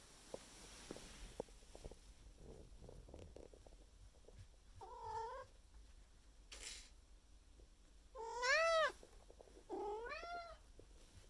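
Maine Coon cat meowing three times in rising-then-falling calls, a hungry cat demanding food; the second call, about eight seconds in, is the loudest.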